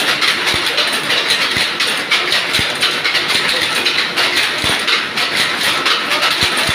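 Power loom weaving cloth: a fast, steady mechanical clatter as the sley beats up each pick, with an occasional deeper thump.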